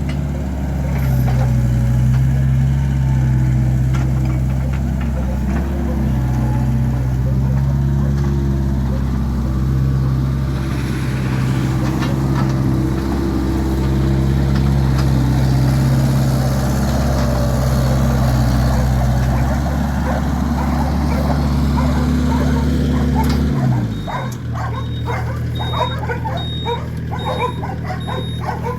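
An engine running steadily at a constant speed, then winding down and shutting off about 24 seconds in. A dog yips and whines rapidly right after it stops.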